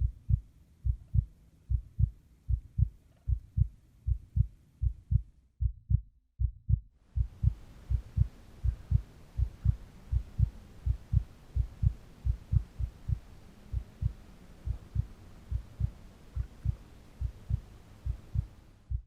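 Heartbeat sound effect: low, regular thumps, about three a second, that fade out briefly around six seconds in and then resume.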